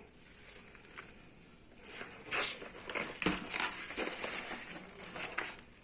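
Rustling and crinkling handling noise with several sharp clicks, starting about two seconds in and stopping shortly before the end.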